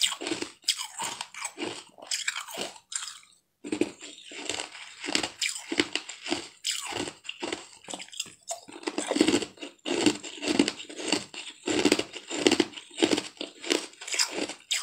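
Close-up biting and chewing of chunks of frozen blue ice, a run of sharp crunches about one or two a second, with a brief pause about three seconds in.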